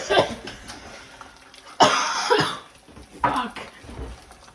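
A person coughing several times in short, sudden bursts, the loudest about two seconds in.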